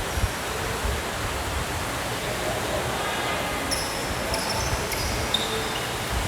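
Basketball game in a gym: the ball bounces with dull thuds, and short high sneaker squeaks come in the middle, over a steady hiss of room noise.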